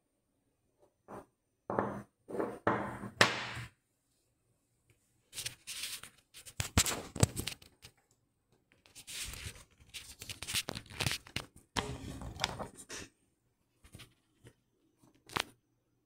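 Small metal lock parts being handled and set down on a wooden table: scattered clicks and knocks, then several seconds of rubbing and scuffing handling noise, and a few more light clicks near the end.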